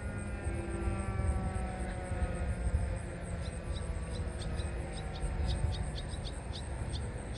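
Distant Federal Signal 2001-SRN rotating tornado siren winding down, its pitch slowly falling, at the end of a test signal cut well short of the usual minute. Short high chirps join from about halfway in, over a low rumble.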